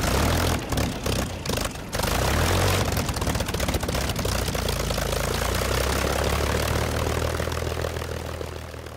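Propeller aircraft engine running: uneven and breaking up for the first two seconds, then a steady drone that fades away near the end.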